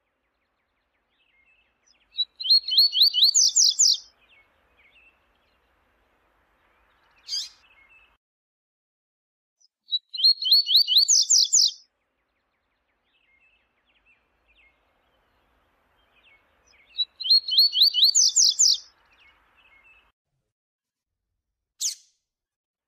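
Double-collared seedeater (coleiro) singing: three phrases about seven seconds apart, each a fast run of repeated high notes lasting about two seconds, with single short notes and faint soft calls in between.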